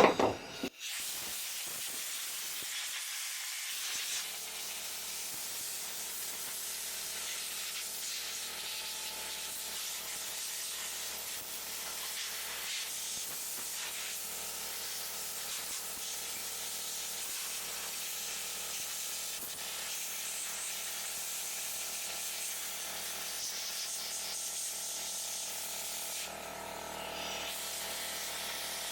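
Compressed air hissing steadily from an air compressor blow nozzle as sawdust and bar oil are blown off a chainsaw, with a brief change in tone near the end.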